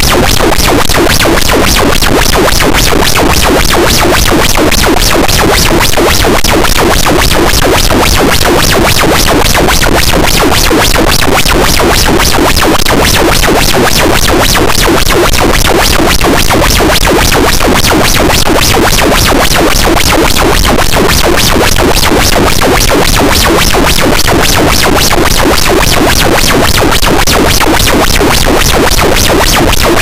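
Harsh noise wall: a loud, dense, unchanging wall of distorted noise filling the whole range from low rumble to hiss, with a fine rapid flutter running through it.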